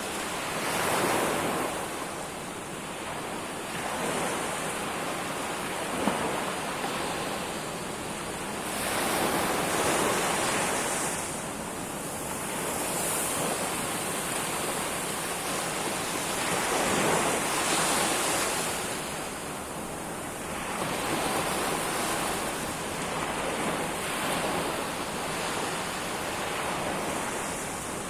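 Sea waves breaking and washing ashore, the surf swelling and easing every few seconds.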